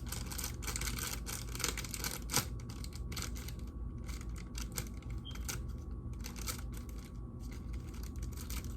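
Cake-mix packaging being cut and torn open: irregular crinkling, rustling and tearing with scattered sharp clicks.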